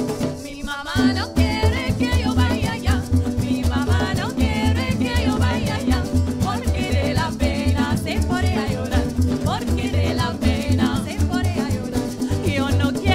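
A live parang band playing: a nylon-string guitar and cuatros strumming, with a shaker keeping time. Several voices come in singing about a second in.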